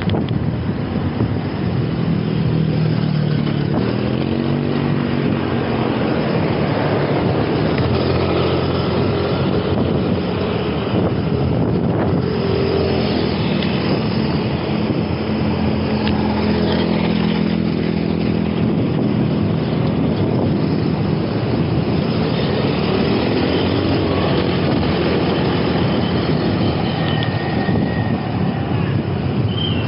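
Road traffic passing close by: motor vehicle engines, several of them rising and falling in pitch as they go past, over a steady rush of wind and road noise.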